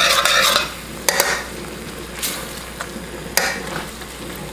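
Metal tongs tossing spaghetti and chicken in a steel sauté pan: bursts of wet scraping and stirring, with a few sharp clicks of the tongs against the pan, over a steady sizzle from the pan.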